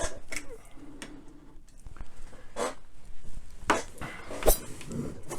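Handling noise: a few scattered knocks, clicks and rustles, with a sharp knock about three-quarters of the way in.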